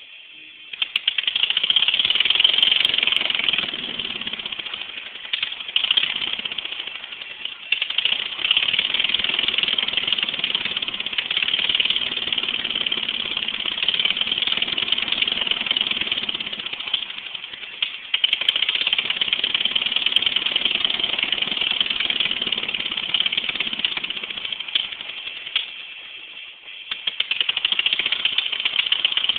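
Racing lawnmower's 700cc Briggs & Stratton engine running through exhaust headers, starting up loud just under a second in, with its level dropping away and coming back several times.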